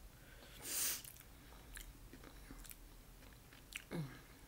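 Soft close-up chewing and mouth clicks of a person eating, with a breath a little under a second in and a brief low hum just before the end.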